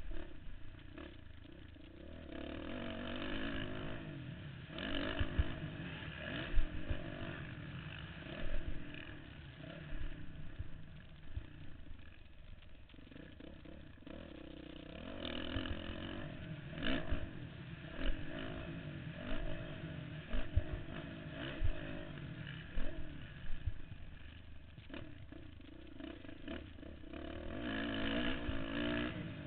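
Dirt bike engine on a motocross track, revving up and backing off again and again through the laps, heard from a helmet-mounted camera. Scattered sharp knocks and a steady rushing noise run under the engine.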